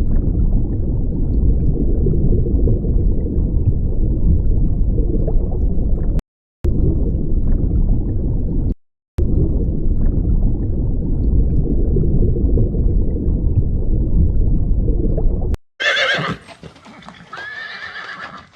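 A loud, low rumbling noise that runs with two brief silent breaks, then stops; a horse whinnies near the end.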